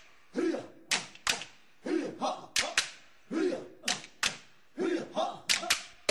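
Sharp knocks in a repeating rhythm, mostly in pairs about every one and a half seconds, with short voice-like sounds between them.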